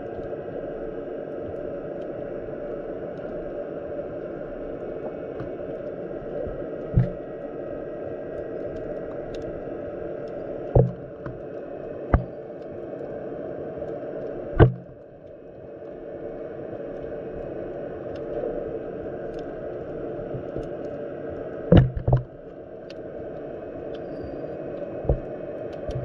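Underwater ambience of a shallow winter sea: a steady low rush of moving water, broken by about seven short, sharp knocks, two of them close together a little past the middle.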